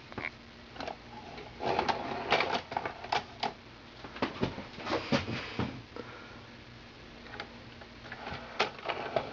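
Clicking and clattering of a Sanyo Betacord VCR4020 Betamax deck's tape mechanism running on test, with a faint steady motor hum between the clicks. The clicks come in a busy run through the middle and again near the end. The deck has just had a new belt kit and idler tire fitted.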